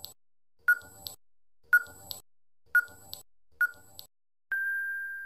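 Quiz countdown timer sound effect: four short tick-beeps about a second apart, then one long steady beep near the end as the answer time runs out.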